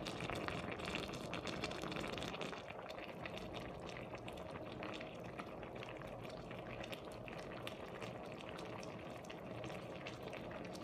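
Pot of stuffed cabbage rolls bubbling in broth, a steady fine crackle and bubbling of liquid at the boil, a little louder for the first couple of seconds.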